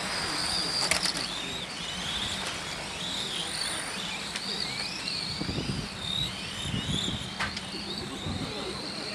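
Several electric 1/10-scale radio-controlled F1 race cars lapping, their motors whining high and the pitch sliding up and down as they accelerate and brake through the corners. Two sharp clicks sound, about a second in and again near the end.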